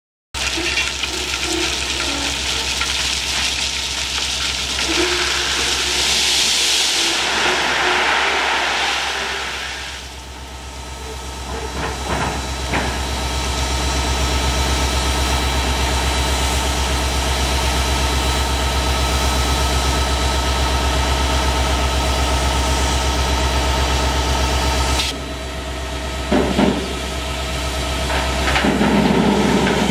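Air-operated side dump ballast car unloading: a loud hiss and the rush of crushed-rock ballast pouring off the tipped body. A steady low drone runs underneath and drops away a few seconds before the end, with a few short metal knocks.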